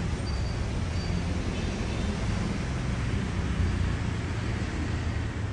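A steady low mechanical hum over a background of even noise.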